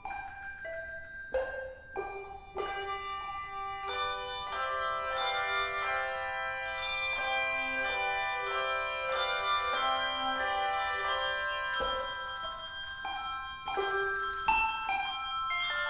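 Handbell choir ringing a hymn arrangement: struck bell tones that ring on and overlap, a few scattered strikes at first, then fuller, sustained chords from about four seconds in.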